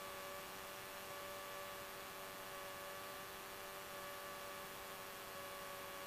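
Faint steady hum and hiss on the cockpit radio and intercom audio line between transmissions, with a few steady tones.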